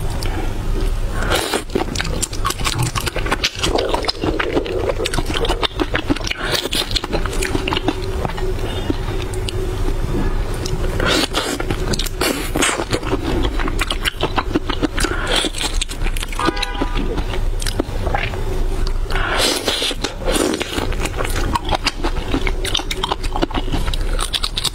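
Close-miked mouth sounds of eating raw chili-marinated shrimp: wet biting, sucking and crackling of shell, many small clicks throughout, over a steady low hum.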